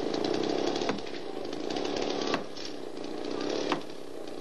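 Chainsaw running steadily as it cuts into the trunk of a large dead tree, with three sharp knocks about a second and a half apart.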